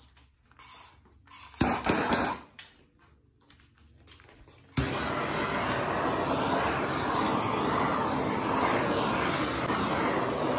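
A few knocks and a short burst of clatter, loudest about two seconds in, then an electric blower switched on with a click about five seconds in and running steadily.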